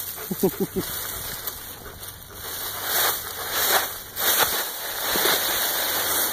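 Dry oak leaves rustling as a Rottweiler roots and noses through a deep leaf pile, in irregular louder swells.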